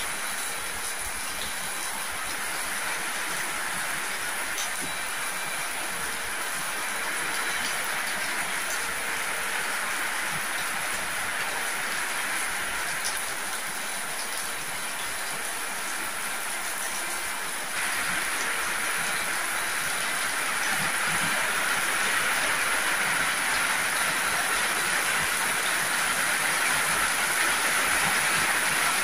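Heavy tropical rain pouring down in a steady hiss onto corrugated metal roofs and a wet concrete yard, with water streaming off the eaves. It grows louder about two-thirds of the way through as the downpour strengthens.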